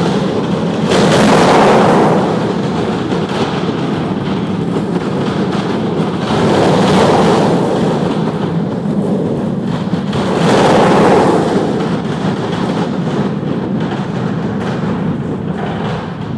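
Aircraft engine running, heard from behind as a loud, steady rushing noise that swells three times.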